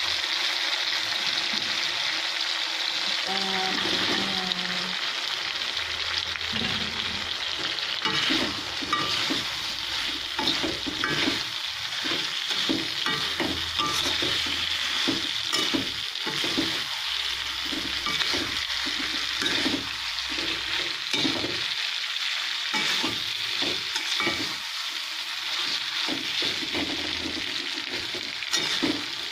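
Chili paste, potatoes and quail eggs sizzling as they fry in a wok, with a metal spatula scraping and knocking against the pan as it stirs; the stirring strokes come thick and fast from about eight seconds in.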